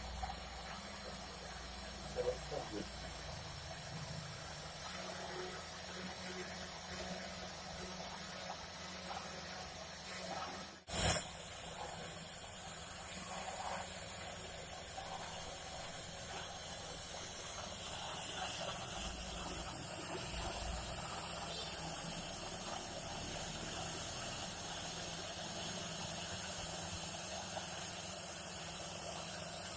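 CNC router spindle running steadily with a hiss, carving foam, with a sharp click about eleven seconds in and the sound growing a little louder later on.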